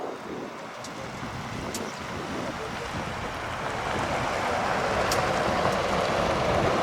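Jet airliner engines, a broad rushing noise that grows steadily louder.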